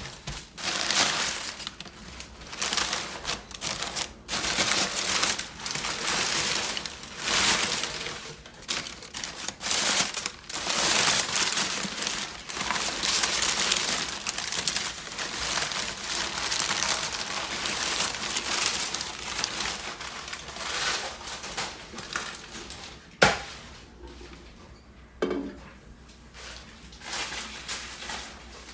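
Packing material being crinkled and crushed while a shipped box is unpacked, with one sharp knock about 23 seconds in and a softer one about two seconds later.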